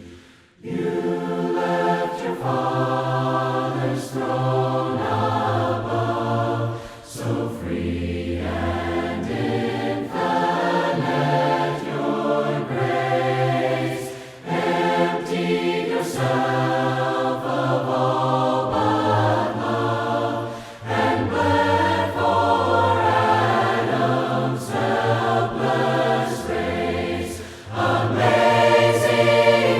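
A cappella choir of mixed voices singing a hymn in harmony, phrase after phrase with short breaks between them.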